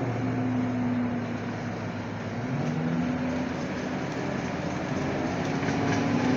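Cabin running sound of a 2009 Scania K230UB Euro 5 city bus: its five-cylinder diesel engine runs steadily under road noise. The engine note sinks slightly, then rises again a little before halfway through.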